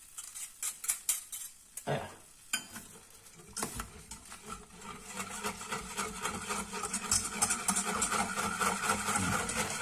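Wire whisk in a saucepan of milk, cornstarch and dulce de leche mixture. First come a few separate clicks of the whisk against the pot, then steady whisking that grows louder toward the end.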